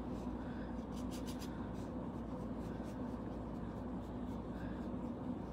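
Flat paintbrush stroking acrylic paint onto a utility tool bag: faint brushing strokes over a steady low background hum.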